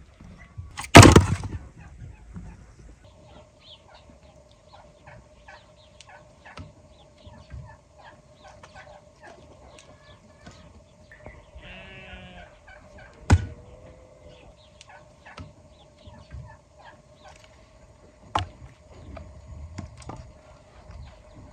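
Farmyard poultry giving one short call about twelve seconds in, amid scattered small clicks and knocks. A loud sharp knock comes about a second in, and two more sharp knocks come later, with a faint steady tone underneath.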